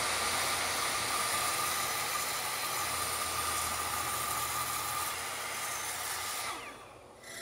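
Sliding compound miter saw cutting through a thick board of very hard karin wood: a steady blade noise with a high whine. About six and a half seconds in, the saw winds down and its sound drops away.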